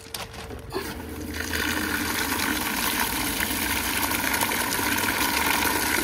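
Outdoor spigot turned on, water pouring in a steady stream into an ice-crusted plastic dish. The flow starts about a second in and builds to a full, steady splash.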